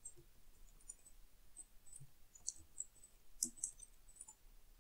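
Faint computer keyboard keystrokes: a few scattered clicks, with small clusters about two and a half and three and a half seconds in.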